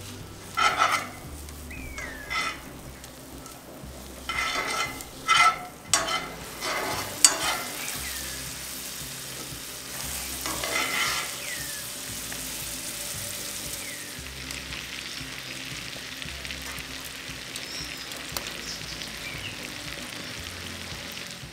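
Butter, crushed garlic and herbs sizzling in a cast-iron skillet, with a metal spoon scraping and stirring the pan in a series of strokes over the first half. After that the butter foams and sizzles steadily.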